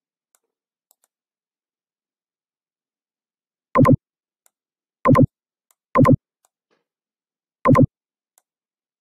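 Four short, loud electronic alert tones from the computer, each under a third of a second, starting about four seconds in and coming roughly a second or two apart. Faint clicks fall between them.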